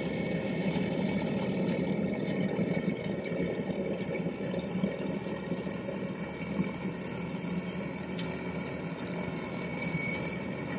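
Heavy machinery's diesel engine running steadily at constant speed, with a steady whine over it.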